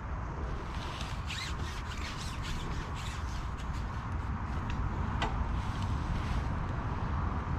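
A quick run of rustling, zip-like scrapes lasting a few seconds, followed by a single click, over a steady low rumble.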